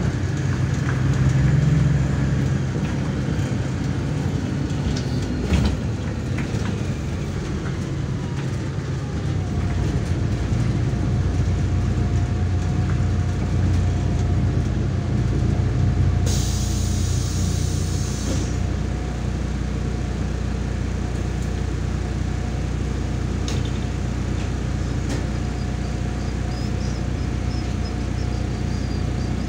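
MAZ 103 city bus heard from inside the cabin, its diesel engine running steadily as the bus comes to a stop and waits. Partway through there is a hiss of compressed air lasting about two seconds.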